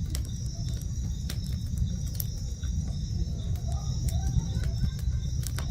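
Campfire crackling with scattered sharp pops, over a steady high trilling chorus of night insects and a continuous low rumble.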